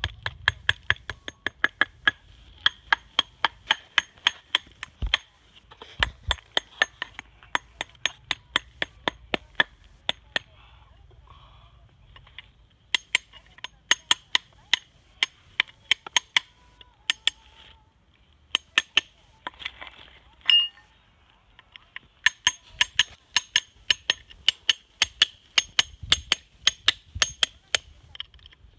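A hammer tapping rapidly on raw Japanese natural whetstone stock (sudoita), sharp ringing taps about five a second in runs with pauses, as the stone is knocked along its layers to find and split off weakly bonded parts. One short, louder noise about two-thirds through.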